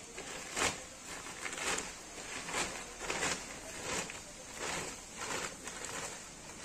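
Woven plastic sack full of paddy being opened by hand: the stiff plastic at its mouth rustles and crinkles in a string of short, irregular bursts as it is worked loose and rolled down.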